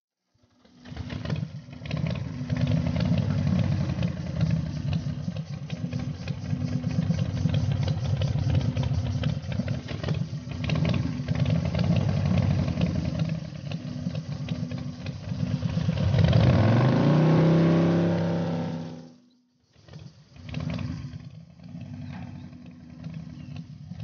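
Motorcycle engine coming in about a second in and running steadily at idle, then revving up with a rising pitch as the bike pulls away, before cutting off suddenly; a fainter motorcycle engine follows.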